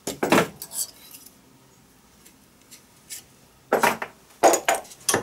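Small metal hand tools clinking and knocking on a metal bench vice and workbench: a few sharp clicks at the start, a quiet spell, then a quick run of metallic clatters near the end.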